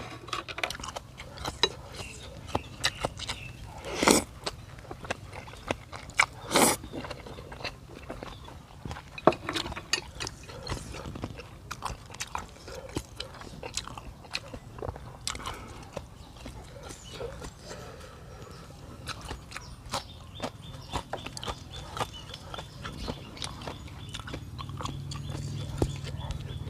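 Close-up eating sounds of a person eating beef noodle soup: chewing and biting with many small clicks and smacks, and two louder, longer noises about four and six and a half seconds in.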